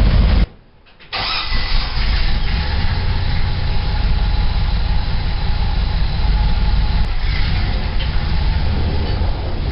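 Car engine running steadily at idle after a cold start in freezing weather. The sound drops out suddenly for about half a second, about half a second in, then carries on.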